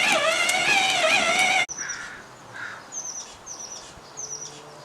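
A loud, drawn-out, wavering high-pitched sound cuts off suddenly about a second and a half in. After it, small birds chirp in short, repeated high calls over a quiet outdoor background.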